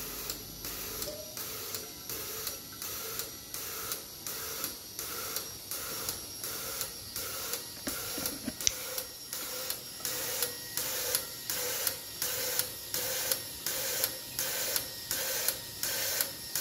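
Fuel injectors on a DIY test bench firing in a steady rhythm, about two pulses a second, each pulse a sharp click with a short hiss of fuel spray, with the electric fuel pump running steadily underneath.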